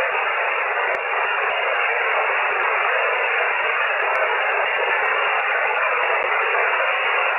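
Steady hiss of band noise from a shortwave amateur radio receiver with no station talking on the frequency, heard through the receiver's narrow audio passband, which makes it sound thin. A faint click comes about a second in.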